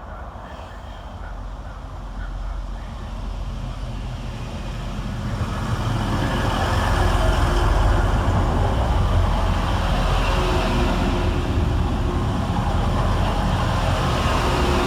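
Diesel passenger train running, growing louder over about the first six seconds and then holding at a steady, loud rumble.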